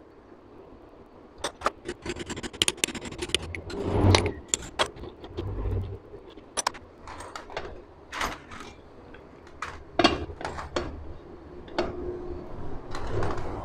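Metal parts and hand tools clinking and clicking against a Honda CG125 engine's crankcase as it is worked on by hand, with two dull thumps about four and five and a half seconds in.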